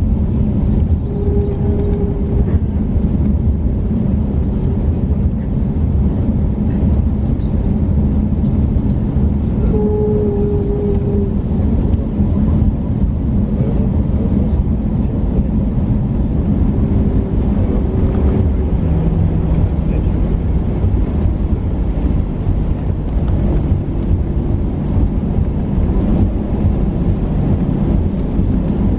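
Steady loud cabin rumble inside an Airbus A321 from its engines and airflow during the approach and landing into Moscow, with a few steady hum tones that shift pitch about two-thirds of the way through.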